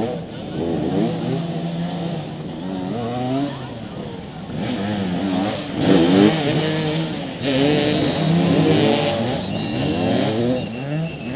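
Several motoball motorcycle engines revving up and down at once, their pitches rising and falling over one another, loudest about six seconds in.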